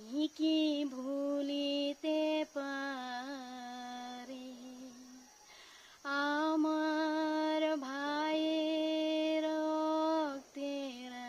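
A woman singing alone without accompaniment, in slow phrases with long held notes; a short phrase with a wavering note comes first, then after a pause about halfway she holds one long phrase of several seconds.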